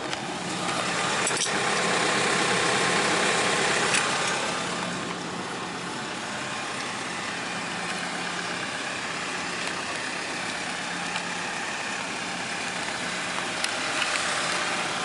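Kia Bongo III pickup truck's engine idling with a steady low hum, under a broad hiss that swells for a few seconds near the start.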